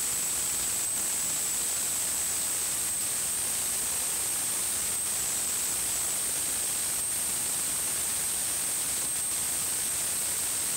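Steady hiss with a thin high-pitched whine and faint ticks about every two seconds: the background noise of the recording.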